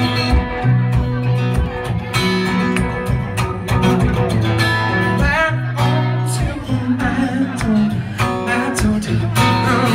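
Live amplified guitar strummed in a steady rhythm, with a man singing at times.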